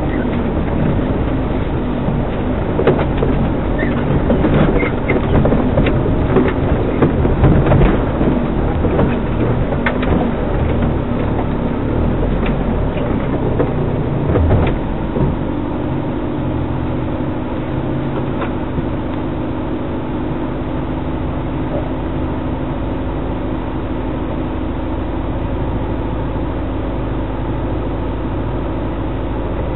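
A 4x4's engine running at crawling speed, with knocks and rattles from the body jolting over a rocky trail. About halfway through the knocking dies away and the engine settles into a steady hum.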